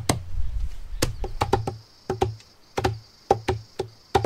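Sickles chopping fresh leafy plant stems on a wooden block, about fifteen quick irregular strikes, each a sharp knock with a dull thud. The plants are being cut fine, to about an inch, so that they rot quickly into liquid manure.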